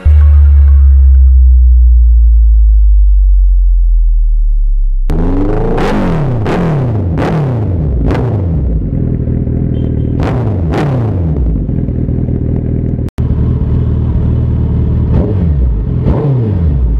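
Suzuki Hayabusa's inline-four engine through an aftermarket Racefit exhaust, revved in neutral. It opens on a loud, deep steady drone; from about five seconds in come repeated sharp throttle blips, each rev rising and then falling back to idle, with a momentary cut in the sound about thirteen seconds in.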